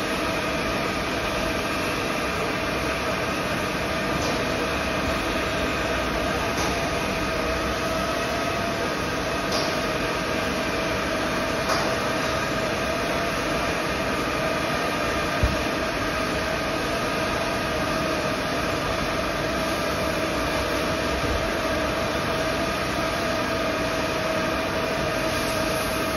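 YC-2018DZ hot-air spiral duct welding machine running with a steady whine over an even mechanical hum. There are a few faint clicks and one short knock a little past halfway.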